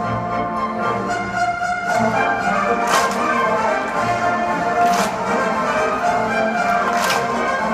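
An orchestra playing, with brass and strings, while sleigh bells ring in short shaken bursts about every two seconds, starting about three seconds in.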